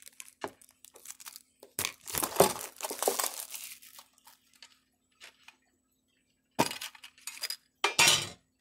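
A small metal Pokémon mini tin being opened and its contents handled: sharp metallic clicks and clinks with rustling, in two bouts separated by a couple of seconds of quiet.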